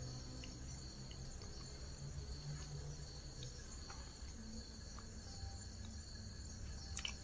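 Steady high-pitched chorus of night insects, crickets trilling without a break, with a sharp click near the end.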